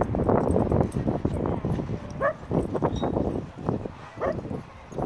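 Dogs playing, with a short bark about two seconds in and another near the end, over scuffling noise.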